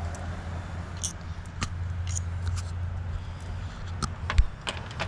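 Scattered light clicks and taps of hands and tools working on the engine's ignition coil connectors, with one louder knock about four seconds in, over a steady low hum.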